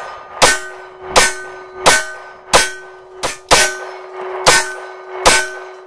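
Semi-automatic pistol fired in a steady string of eight shots, about one every 0.7 s, with a quicker pair near the middle; each report rings and echoes away.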